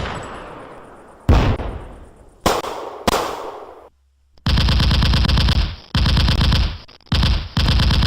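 Gunfire sound effect: three single shots, each trailing off in a long echo, then after a brief silence several bursts of rapid automatic fire, each about a second long.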